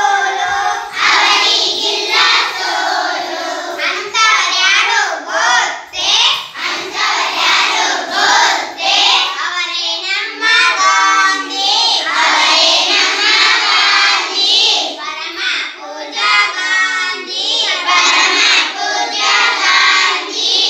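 A group of young children singing together in unison, an action song with hand gestures, loud and close.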